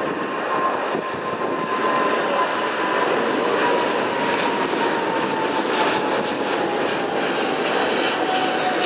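Jet engines of a twin-engine Boeing 777 airliner at climb power, climbing out just after takeoff: a loud, steady roar with a whine that slowly falls in pitch as the plane passes.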